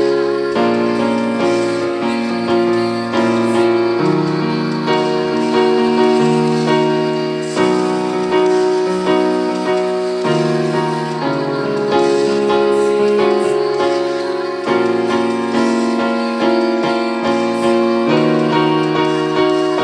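Electronic keyboard playing slow, sustained worship chords with a piano sound, the chords changing every second or two.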